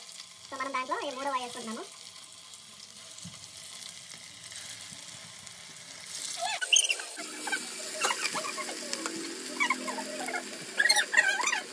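Batter-coated chicken pakodi pieces deep-frying in hot oil in an aluminium pot. A faint steady sizzle becomes loud sizzling and crackling about six seconds in, as more pieces are dropped into the oil.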